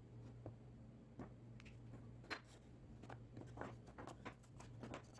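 Scattered faint taps and clicks of a small pine box and thin wooden parts being handled on a workbench, the clearest about two seconds in, over a low steady hum.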